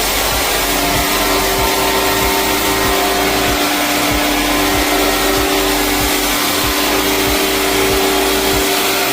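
Motor-driven cleaning machine running steadily, a loud even rush with a steady hum and whine, of the vacuum or blower kind used in air-conditioner cleaning.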